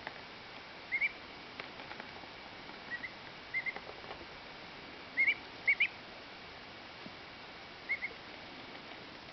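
Young duckling's soft contented peeps: short rising chirps, mostly in quick pairs, coming every second or two, the happy peep it makes while preening. A few faint clicks fall between the peeps.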